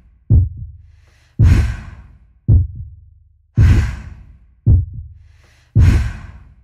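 A trailer sound effect: a short low thud, then about a second later a longer breathy exhale over a deep thud, each fading away. The pair repeats three times, about every two seconds, like a slow heartbeat paired with a sigh.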